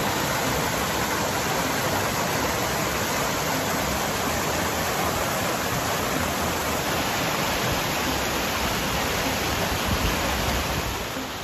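Mountain stream cascading over rocks into a pool: a steady rush of falling water, a little quieter near the end.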